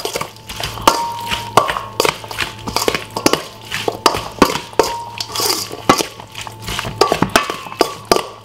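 Metal spoon clinking and scraping against a stainless steel mixing bowl as diced chicken is tossed in a wet spice marinade. Irregular knocks come several a second, some with a brief metallic ring from the bowl.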